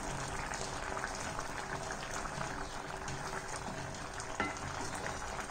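Spiced raw mango pickle simmering in a pot, the thick masala bubbling with many small pops, while a spatula stirs it. One short click about four seconds in.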